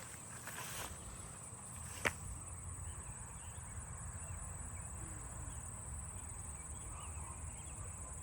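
Faint, steady, high-pitched insect trill over low background rumble, with a single sharp click about two seconds in.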